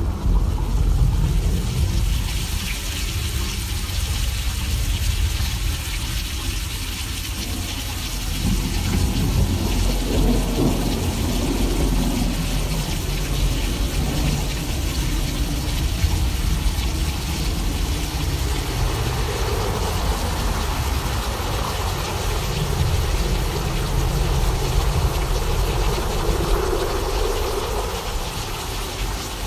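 Simulated thunderstorm: a steady rain-like hiss over a continuous deep rumble, with swelling mid-pitched washes about ten seconds in and again near the end.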